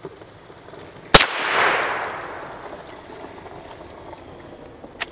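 One shotgun shot from a Henry Lever Action X .410 firing Winchester 000 buckshot, a sharp crack about a second in followed by a long echo that fades over about two seconds. Two short sharp clicks follow near the end.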